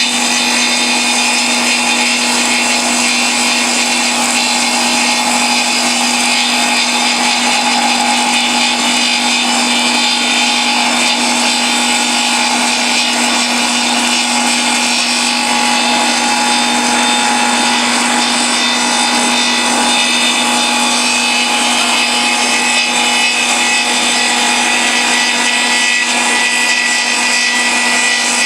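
Log lathe running steadily: a motor's even hum under loud, constant cutting noise as the machine works a log, typical of its kerfing cut.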